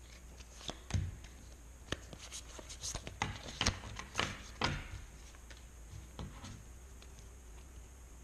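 Pokémon trading cards and packs being handled on a surface: a string of light clicks and taps for the first five seconds or so, then quieter handling.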